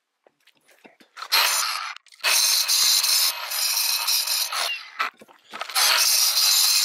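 Concrete block being ground down with an abrasive, a harsh gritty scraping on masonry in long passes, starting just over a second in and broken by short pauses. This is the dressing of the block so that the dry-stacked courses sit level.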